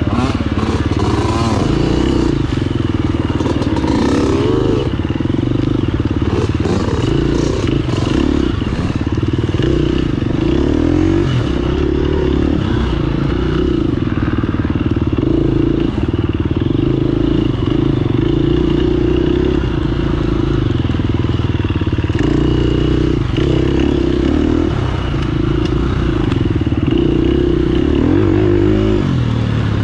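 Off-road motorcycle engine running under load, its pitch rising and falling as the throttle is worked, with clattering knocks over it during the first several seconds.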